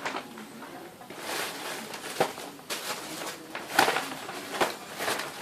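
Rustling with a few sharp clicks and knocks as small objects are handled, in uneven bursts.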